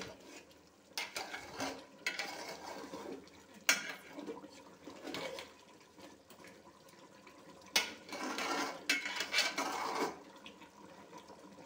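Steel spatula scraping and clinking against the metal cooking pot while stirring watery duck curry. There are a few sharp knocks of metal on metal, with softer scraping in between.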